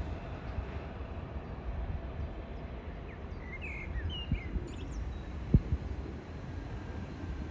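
Outdoor ambience: a steady low rumble, with a small bird chirping a few times near the middle and two short low thumps shortly after.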